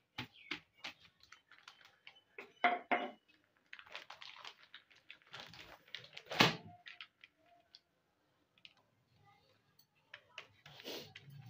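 A wooden pin knocking on chicken pieces sealed in a plastic zip-lock bag, pounding them into one flat slab: a few dull knocks in the first second, then scattered handling noises with one loud knock or thump about six seconds in.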